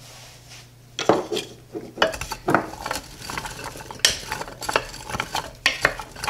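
Wooden spoon stirring raw diced carrots, celery and onion in a crock pot, with irregular knocks and scrapes against the pot starting about a second in.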